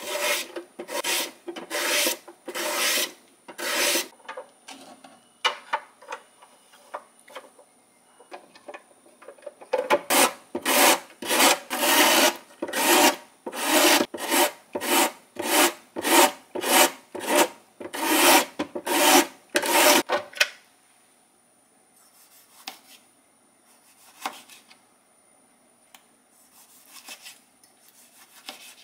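Vegetables rubbed back and forth over the blade of a plastic julienne slicer, a loud rasping stroke with each pass: a cucumber at first, then a carrot with about two strokes a second until about 20 seconds in. After that only faint, light knife cuts through a tomato on a plastic cutting board.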